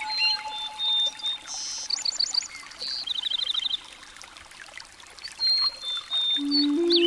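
Background nature-sounds soundtrack: trickling water with high chirping and trilling bird-like calls. A held music note fades about a second in, and low sustained music notes come in near the end.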